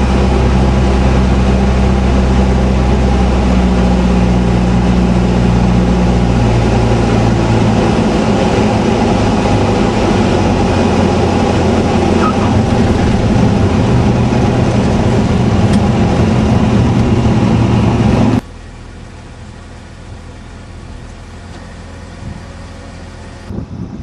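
A light aircraft's engine heard from inside the cockpit, a loud steady drone during landing approach and rollout; its tone shifts about seven seconds in. About three-quarters of the way through it cuts off abruptly to a much quieter background.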